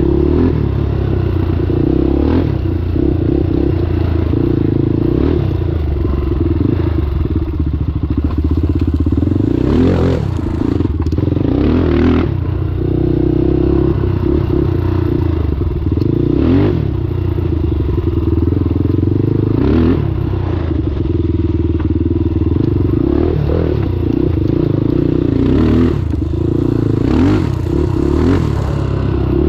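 Honda 400EX quad's single-cylinder four-stroke engine running on a trail ride, its note rising and falling with the throttle, with clattering knocks every few seconds.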